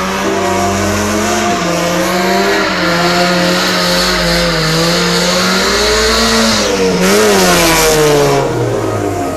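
Car engine held at high revs, its pitch wavering and stepping, with a steady hiss of tyre noise under it.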